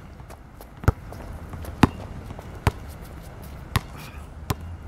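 Basketball bouncing on stone paving: five sharp, loud bounces about a second apart.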